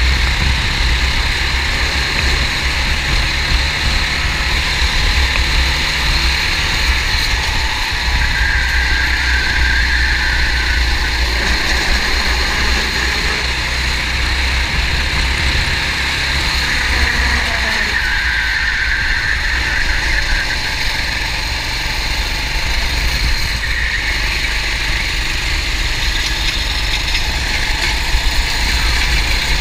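Racing kart engine running steadily, heard from onboard the kart as it laps the track.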